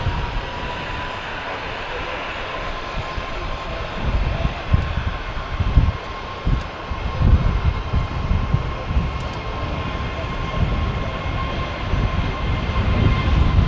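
Airbus A321neo jet engines running as the airliner rolls along the runway: a steady engine whine over an uneven low rumble.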